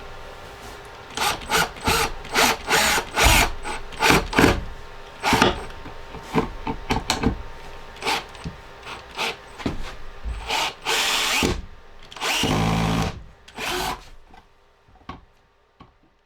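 Right-angle drill driving pocket screws, run in about a dozen short bursts and then two longer runs near the end.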